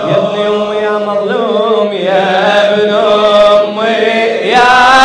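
A man chanting an Arabic Shia lament (latmiya) in long, wavering held notes.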